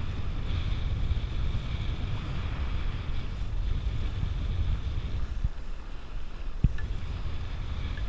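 Strong wind buffeting the microphone over the rush and splash of a Sunfish sailboat's bow wave as the boat planes fast on a reach in 20–25 mph wind. A single sharp knock about six and a half seconds in.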